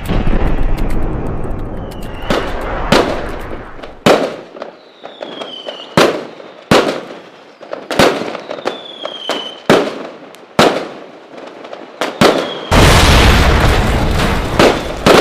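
Fireworks going off: a loud opening boom with a rumble, then sharp bangs a second or so apart, several of them preceded by short falling whistles. Near the end it builds into a dense barrage of crackling bangs.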